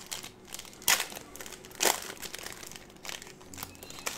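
Trading-card pack wrapper crinkling as it is torn open, with two loud, sharp crackles about one and two seconds in.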